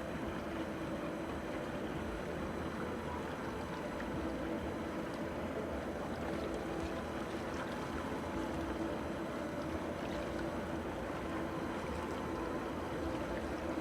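Steady harbour ambience: a low, even hum like boat engines out on the water, over a constant wash of water and wind noise.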